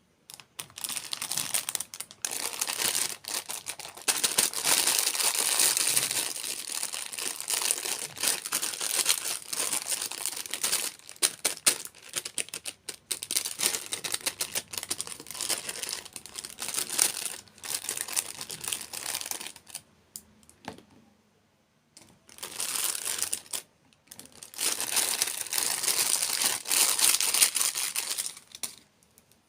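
Crinkly plastic or foil packaging being handled and torn open in long crackling stretches, with two short pauses in the last third.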